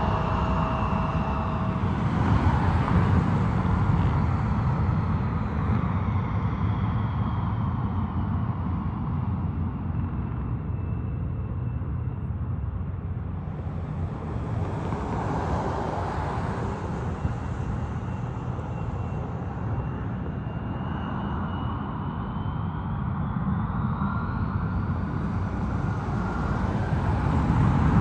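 Twin turbofan engines of a United Express regional jet running at low, taxiing power: a steady rumble with a high whine that dips in pitch and then rises again as the jet turns. The sound fades slightly midway and grows louder near the end.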